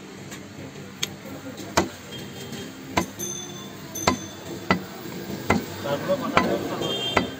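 Heavy butcher's cleaver chopping beef on a wooden log chopping block: a string of sharp chops at an uneven pace of about one a second.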